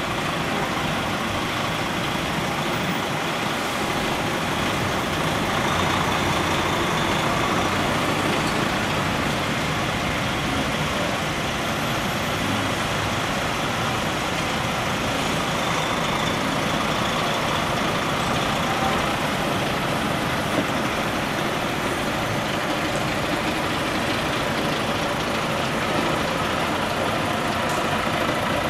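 Heavy diesel lorry tractor units, a DAF and Volvos among them, running at low revs as they creep past in a slow queue: a steady, unbroken engine and traffic noise.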